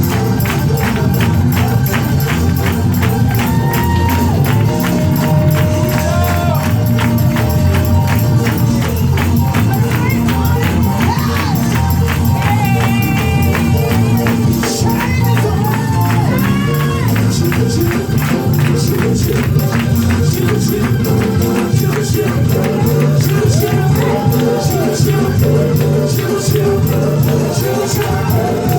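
Fast gospel praise music driven by a rapidly shaken tambourine over a heavy, steady beat, with voices singing along.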